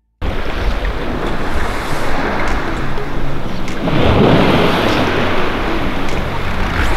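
Wind buffeting the microphone with a low rumble, over sea water lapping and sloshing around a sea kayak leaned onto its side with a paddler lying back on the water. The sound cuts in suddenly just after the start and swells around four seconds in as the water sloshes more.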